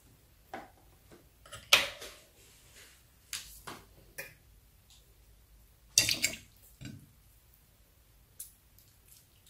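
Scattered handling taps and clicks of a rubbery, water-filled jelly pig squishy being picked up and held over a glass dish. The two loudest knocks come about two seconds in and about six seconds in.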